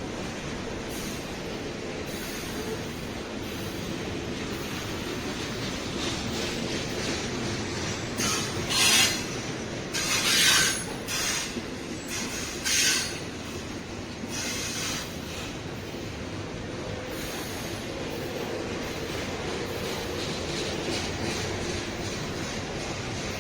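Freight train rolling past on the rails with a steady rolling noise. Around the middle come four loud, high-pitched bursts of wheel screech.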